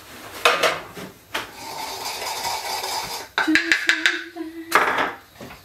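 Kitchen handling noises at a worktop: a couple of knocks, a stretch of rustling or scraping, a short steady low tone with clicks, and a sharp clack near the end.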